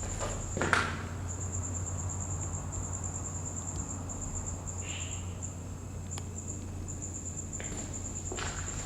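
A cricket trilling steadily in fast high-pitched pulses, with a low steady hum beneath and a couple of short scuffs or knocks, one about a second in and one near the end.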